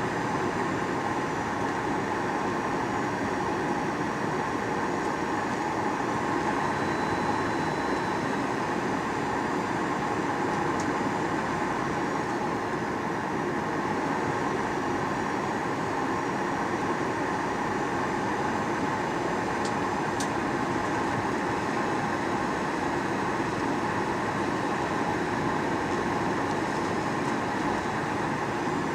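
Steady cabin noise of a Boeing 737-800: the engines and airflow heard from inside the passenger cabin, an even noise with a faint high whine above it.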